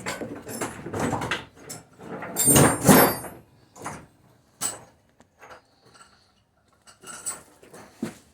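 Irregular metallic clunks, scrapes and rattles of engine parts and hand tools being handled, busiest in the first three seconds, then a few scattered clicks.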